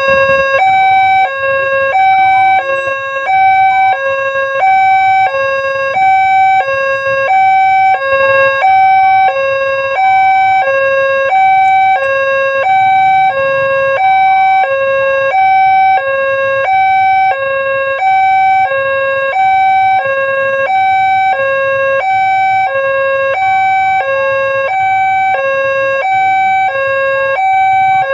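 Railway level-crossing warning siren sounding a steady electronic two-tone hi-lo alarm, switching evenly between a lower and a higher pitch about once a second: the signal that a train is approaching the crossing.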